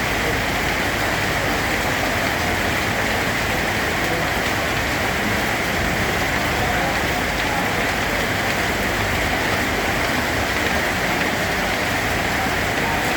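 Steady heavy rainfall falling on a surface, an even hiss of drops with no let-up or change.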